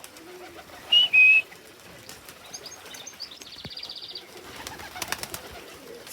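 A loud two-note whistle, a high note then a slightly lower one about a second in: a pigeon fancier whistling his birds in to the loft. A brief fast high trill follows, then a quick run of pigeon wing claps near the end.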